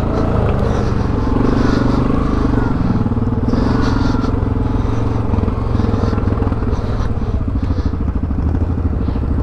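ATV engine running while riding a trail, the revs climbing a little over a second in and easing back about halfway through to a lower, pulsing run.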